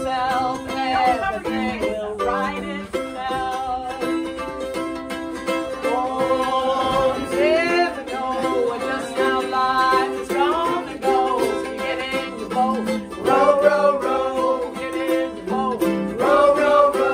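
A group of women singing together to a strummed ukulele and mandolin.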